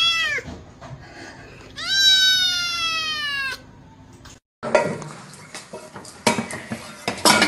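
A kitten meows: one long meow falls away about half a second in, then a second long, loud meow follows. After a brief gap, metal pots and a kettle clatter and knock several times as a cat moves among them on a stove.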